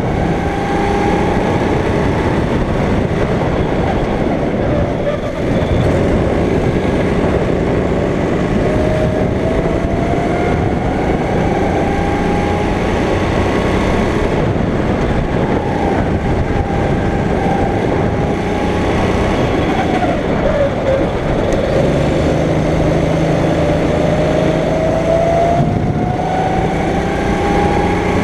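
Go-kart engine running hard, its pitch climbing steadily as the kart accelerates, falling sharply about two-thirds of the way through as it slows, then climbing again near the end.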